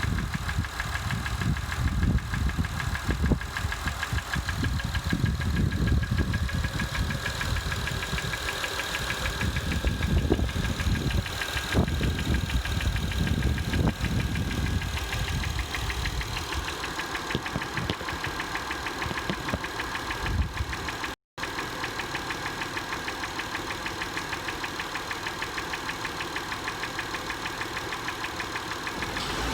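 2005 Acura TL's 3.2-litre V6 idling with a steady, rapid knock, the engine knocking its owner is documenting. The sound drops out for an instant a little past two-thirds of the way through.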